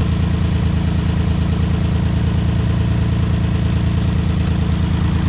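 Nissan 350Z's VQ-series V6 idling with a rhythmic, uneven note from a misfire (random misfire code P0300), as coil pack connectors are unplugged one at a time to find the dead cylinder. The engine note shifts slightly right at the start.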